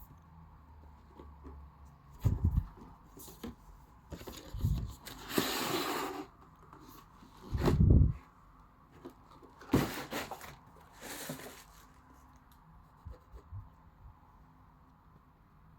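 Sneaker box and packaging being handled: several low thumps, the loudest about eight seconds in, and stretches of paper or cardboard rustling around five to six seconds and again around ten to eleven seconds.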